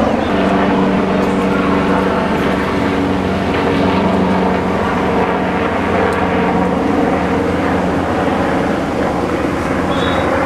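A large vehicle engine running steadily at raised revs, its pitch shifting slightly now and then.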